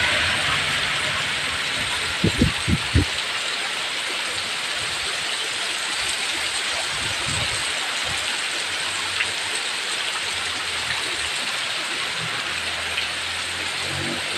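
Heavy rain pouring down steadily, a dense even hiss, with four quick dull thumps about two seconds in.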